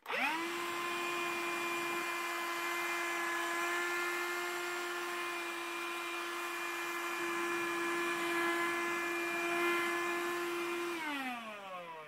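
CLEANmaxx cordless cyclone handheld vacuum switched on, its motor rising quickly to a steady high whine as the small nozzle sucks at the carpet. About eleven seconds in it is switched off and the whine falls in pitch as the motor spins down.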